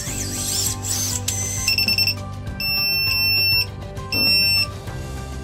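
Electronic beeps from an FPV quadcopter setup as its motors cut out: a short beep, then a steady high beep of about a second, then a shorter one, over background music. The owner later puts the cut-out down to a probable lost signal.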